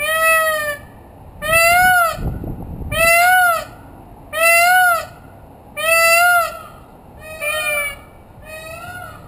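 Peacock calling a series of seven loud, wailing calls about a second and a half apart, each rising then falling in pitch, the last two softer. A brief low rumble sounds about two seconds in.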